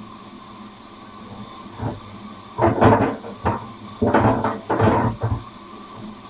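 Atlant washing machine running on its wash cycle: under a steady hum, the tumbling load knocks and thumps against the drum in a cluster of five or six loud clunks over about three seconds.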